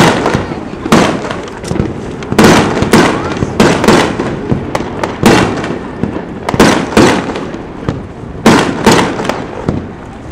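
A rapid volley of fireworks shells bursting, a sharp boom every half second to a second, each trailing off in a rolling echo.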